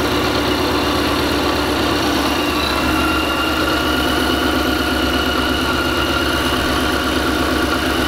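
Whipple-supercharged 5.0 Coyote V8 of a 2016 Mustang GT idling steadily. It is running on a newly installed return-style fuel system, with fuel pressure at about 50 psi, after a dead fuel pump had left it unable to start.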